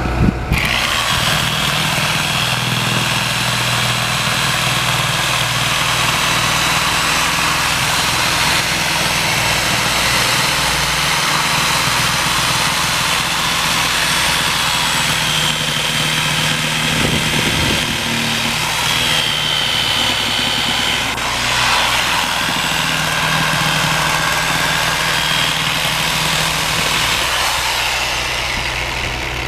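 Power cutting tool with a blade running and cutting through a rubber tire: a steady high whine over a grinding noise that starts about half a second in and eases off near the end.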